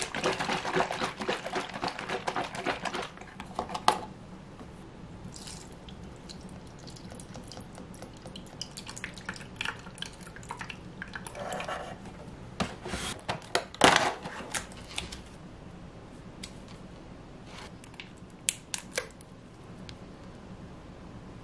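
Oat milk poured from a carton into a plastic blender jar of cut strawberries and banana, with kitchen handling sounds around it: rustling as the carton is handled at the start, sharp knocks a little after the pour, and small clicks near the end as a honey stick is torn open.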